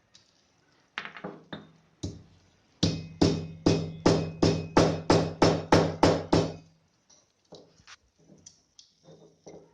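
Green cardamom pods being crushed with a pestle in a mortar: a few taps, then a steady run of about a dozen strikes at about three a second, each ringing briefly, then a few lighter knocks.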